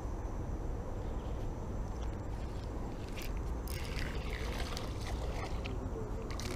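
A steady low rumble, with scattered clicks and scrapes from about three seconds in as a spinning reel is cranked to bring in a small fish.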